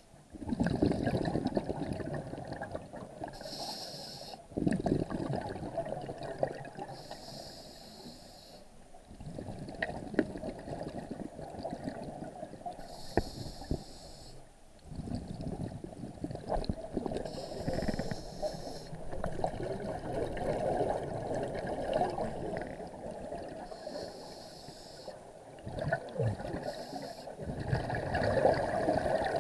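Scuba diver breathing through a regulator, heard underwater: a short hiss on each inhale, then a longer rumbling, gurgling rush of exhaust bubbles on each exhale, in a slow cycle about every four to five seconds.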